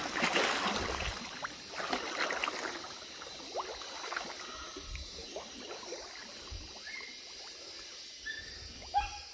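Splashing and rustling of movement through shallow water and reeds, loudest in the first second, then quieter scattered splashes.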